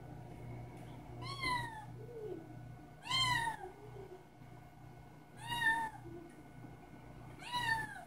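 Kitten meowing four times, about two seconds apart, each a high-pitched meow that rises and then falls: begging to be fed.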